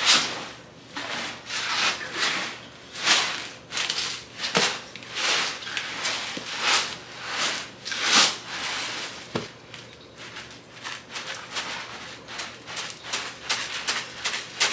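A container of homemade laundry detergent with scent booster beads being shaken to mix it: a rhythmic gritty swishing, about one or two shakes a second, lighter and quicker in the last few seconds.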